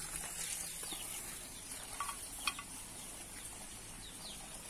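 Faint, scattered short falling peeps of young chickens, with two light clicks about two seconds in.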